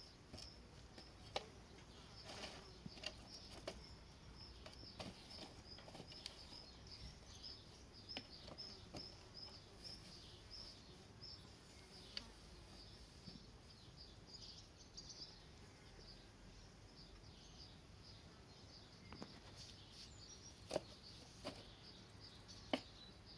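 Faint, high-pitched insect chirping, repeating rapidly, with scattered soft taps and clicks.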